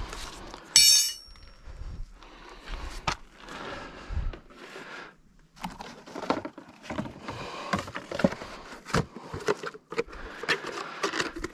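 Metal hand tools being handled: a sharp metallic clink that rings briefly about a second in, followed by scattered knocks and clatter of tools and parts being moved.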